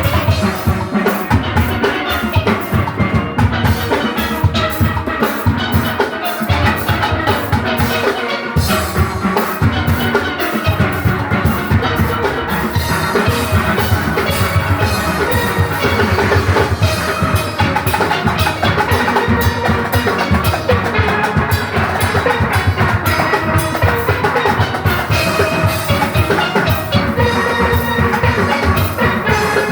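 A steel orchestra playing live: massed steelpans ringing out a fast melody over bass pans and a drum kit keeping a steady beat.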